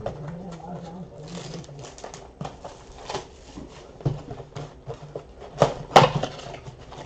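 Cardboard trading-card boxes being handled and unwrapped by hand: scattered crinkles, scrapes and light taps, with two sharper knocks close together near the end.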